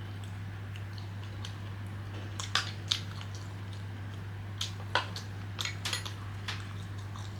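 Chopsticks clicking and tapping against a plate and bowl while picking up food, a few sharp taps about two and a half seconds in and more around five to six seconds, over a steady low hum.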